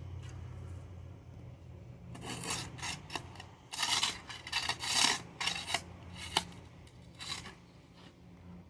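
Shovel scraping dirt and roots off a buried concrete slab in a string of short, rough scrapes, bunched in the middle, over a steady low hum.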